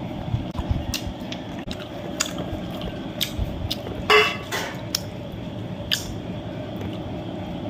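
Eating sounds: wet squelching of curry and rice being handled and chewed, with scattered clicks against the plate and one louder clink about four seconds in.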